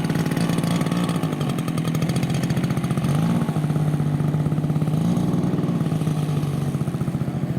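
Engine of a large radio-controlled model airplane running at a steady pitch, with the pitch rising briefly about three seconds in and again about five seconds in.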